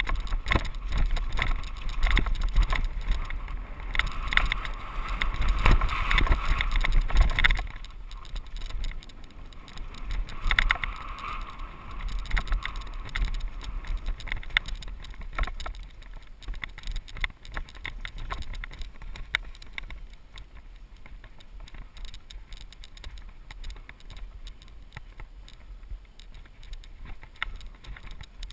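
Mountain bike rolling fast down a dirt trail: tyres on dirt and gravel, with the bike rattling and clattering over rough ground and wind buffeting the microphone. It is loudest for the first several seconds, then eases to a lighter, patchier rattle as the bike slows on smoother trail.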